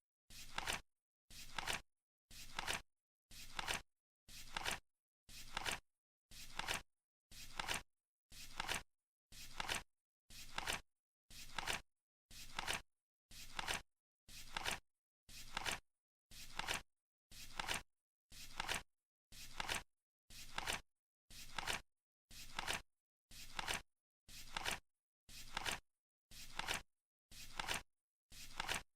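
Flip clock countdown timer's flip sound effect, a short flap once every second, each lasting about half a second, evenly repeated.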